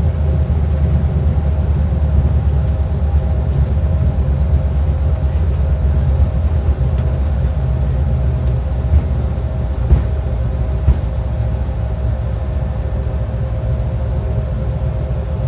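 Flight-deck noise of an Airbus A220-300 rolling on the ground after landing: a steady low rumble from the wheels on the pavement and the idling engines, with a few faint steady tones. Three short thumps come about nine, ten and eleven seconds in.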